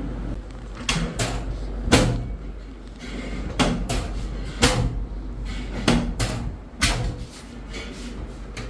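A run of sharp knocks and slaps during hands-on chiropractic adjustment treatment, about a dozen over the stretch, often in quick pairs roughly once a second, starting about a second in, over a steady low hum.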